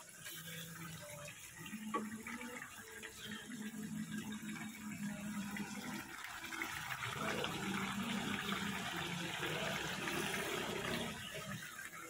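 Water running or splashing for several seconds, growing louder past the middle, with a single metallic clink about two seconds in.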